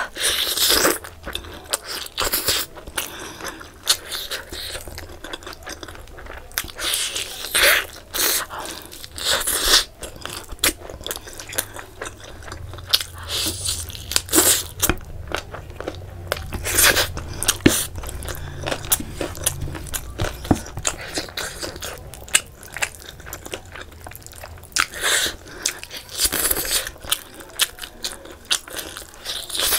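Close-miked eating sounds: biting into and tearing meat off a curried chicken drumstick, and chewing, in irregular bursts.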